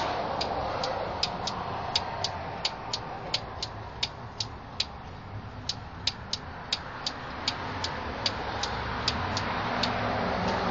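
Relays in a 1980 Mercedes-Benz 300SD (W116) clicking once each time the brake pedal is pressed or released, about two to three sharp clicks a second as the pedal is pumped. The clicking is an unexplained fault that occurs with the ignition on and stops once the car is moving above 2 or 3 mph.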